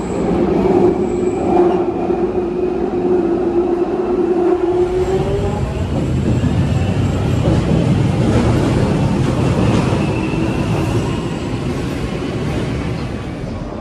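London Underground Jubilee line train running, with a steady motor whine over its rumble. About five seconds in, the sound changes to the broader rumble and hiss of a train at the platform, with faint rising whines.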